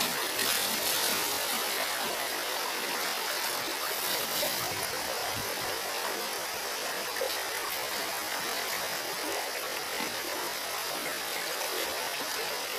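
Steady rush of shallow river water flowing over a stony bed, with faint splashes of water being scooped and thrown.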